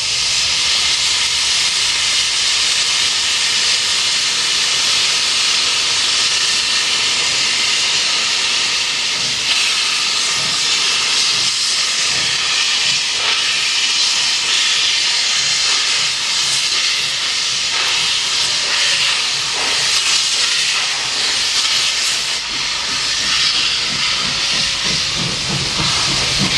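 Steam locomotive venting steam: a loud, steady hiss that starts abruptly and holds without a break, with a faint whistling tone running through it.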